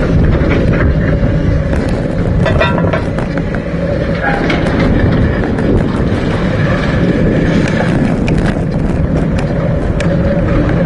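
Bicycle rolling along a paved path, heard through a camera mounted on the bike: a steady rumble of tyres and frame with many small clicks and rattles.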